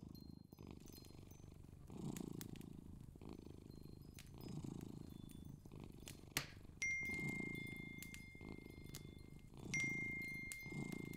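Faint cat purring, a low rumble that swells and fades about every two and a half seconds. A sharp click about six seconds in, then a thin steady high tone.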